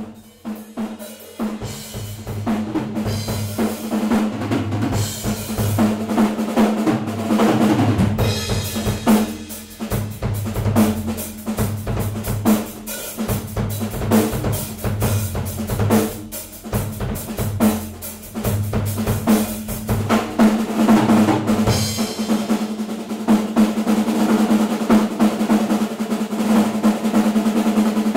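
Acoustic drum kit played fast: dense snare and tom rolls over a recurring bass-drum pattern, with cymbals. It builds in loudness over the first few seconds.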